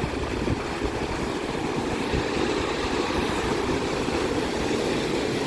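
Big Lake Michigan waves breaking and washing over the shore rocks: a steady rushing rumble.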